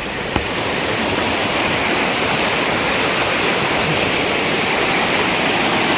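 Rushing water of a mountain stream cascading over rocks: a loud, steady roar.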